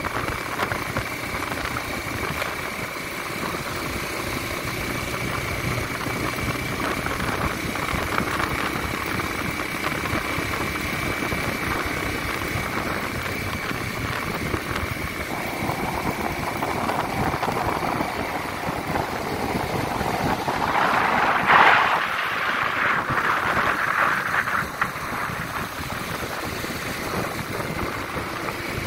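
Yamaha motorcycle engine running steadily at road speed, mixed with wind noise from riding. A brief louder swell comes a little past two-thirds of the way through.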